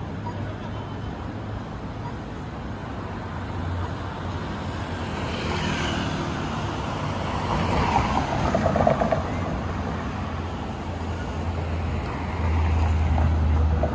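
City street traffic: a vehicle goes by, loudest about eight to nine seconds in, over a steady low engine hum that grows louder near the end.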